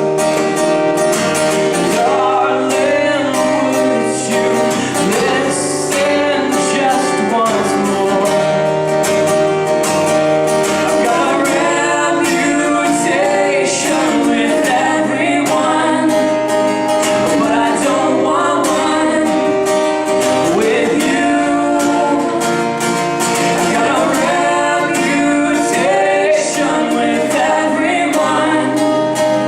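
A band playing a song live: a singing voice over guitar, with a steady beat of drum or cymbal hits.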